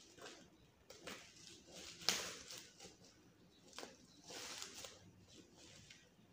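Scissors snipping and bubble-wrap plastic crinkling as the wrapping around a box is cut and pulled open: a string of short, sharp clicks and rustles, the loudest about two seconds in.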